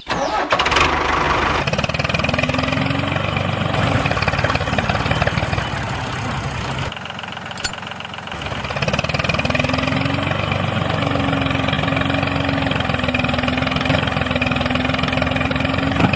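A miniature toy tractor's small motor running steadily. It dips lower about seven seconds in and builds back up about two seconds later.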